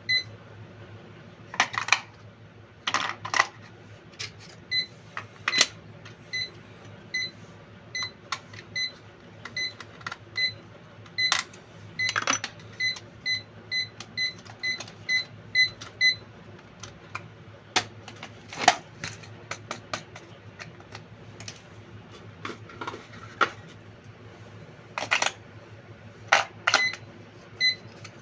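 A short, high electronic beep repeating about once or twice a second, amid irregular sharp clicks and knocks. The beeping stops a little past halfway and comes back near the end.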